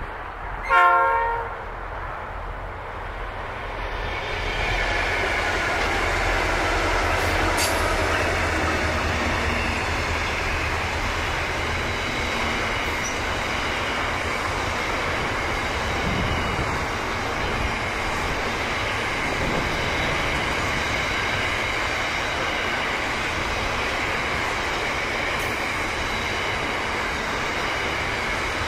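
A short horn blast from the lead diesel locomotive about a second in. Then the sound of Pacific National's three diesel-electric locomotives (81 class 8144, BL31, XR559) rises as they approach and pass. After them comes the steady rolling rumble of loaded container flat wagons, with faint wheel squeal.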